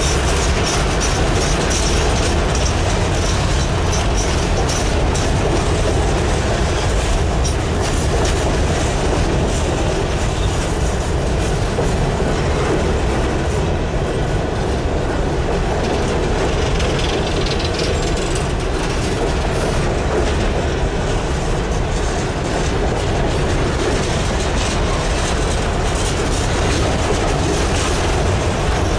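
Coal hopper cars of a freight train rolling steadily past close by: a continuous rumble of wheels on rail, with rapid clicks as the wheels cross rail joints.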